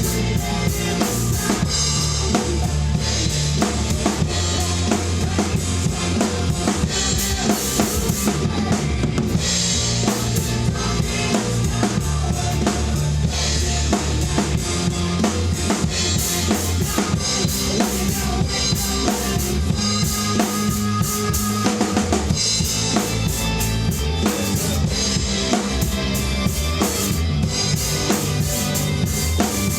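Rock drum kit played hard over a recorded hard rock track: steady kick drum and snare hits with crashing cymbals, continuous and loud.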